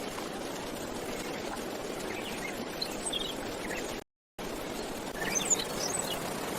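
Steady outdoor background noise with a few short, high bird chirps scattered through it, cut by a brief moment of silence about four seconds in.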